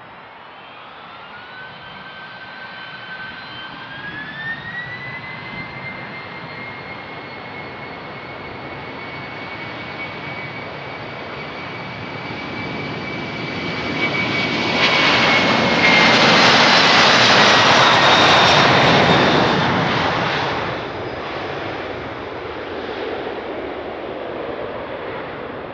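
Boeing 767-300F's twin General Electric CF6-80C2 turbofans spooling up to takeoff thrust, their whine rising in pitch over the first few seconds and then holding steady. The jet noise grows through the takeoff roll and is loudest for several seconds as the aircraft passes, the whine falling in pitch. It then drops back to a steadier, lower level as the aircraft climbs away.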